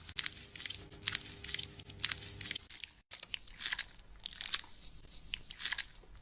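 Fingers scrubbing hair and scalp during a salon hair wash: a run of irregular, crunchy scratching strokes, with a brief break about halfway.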